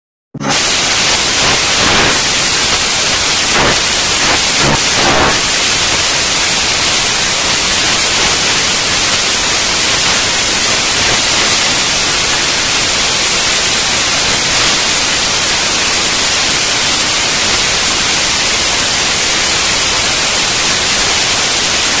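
Loud, steady hiss like static or white noise, starting abruptly out of silence and holding even throughout, with a few faint clicks in the first few seconds.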